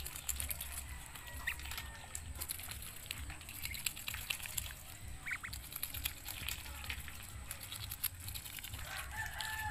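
Muscovy duck's bill clicking and smacking as it nibbles water spinach leaves from a hand: many quick, irregular clicks.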